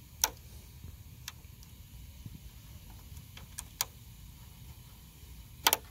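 Small sharp metallic clicks of a loose star (Torx) driver bit being pushed by hand into star-head screws to test the fit, a few scattered through, with a louder double click near the end.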